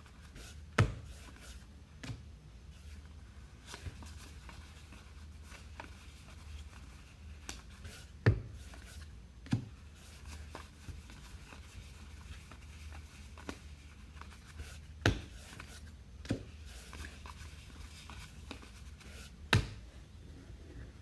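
Trading cards and packs being handled on a table: soft rubbing and sliding with about eight sharp taps scattered at irregular intervals, over a low steady hum.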